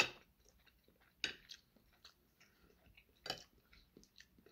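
A person chewing crispy pan-fried tofu, with faint crunches and clicks about a second in and again just past three seconds.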